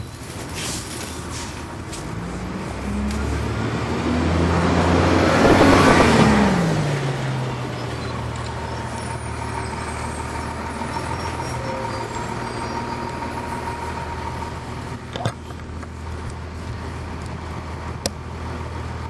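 Cummins ISC inline-six diesel of a 1999 Nova Bus RTS, heard from on board. It rises in pitch and loudness as the bus pulls away, is loudest about six seconds in, then drops back to a steady lower drone. A sharp knock comes about fifteen seconds in, and a click near the end.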